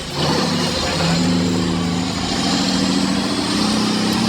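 Heavy truck engine running steadily under load, its pitch rising in steps about a second in and again near the end.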